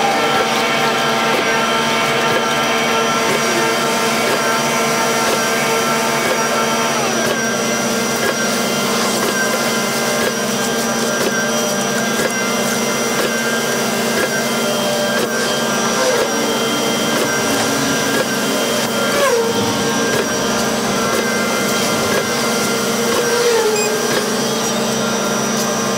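Concrete mixer truck running while it discharges concrete down its chute: a steady mechanical drone and whine from the engine and the drum drive, with the pitch dropping slightly about seven seconds in.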